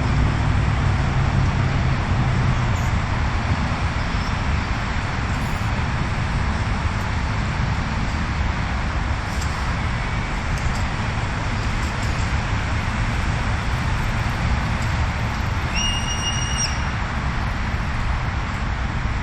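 Steady outdoor background noise with a heavy low rumble. About sixteen seconds in comes one brief high whistle-like tone lasting about a second.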